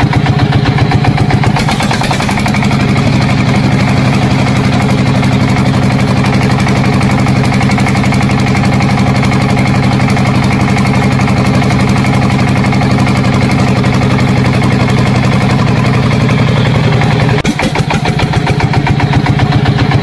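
Tractor engine sound running steadily with a low, even drone, most likely a dubbed-in sound effect rather than the toy's own motor.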